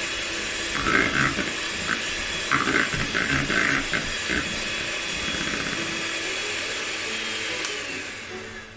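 Electric hand mixer running steadily, its beaters churning thick butter cake batter in a bowl. The motor noise fades out near the end.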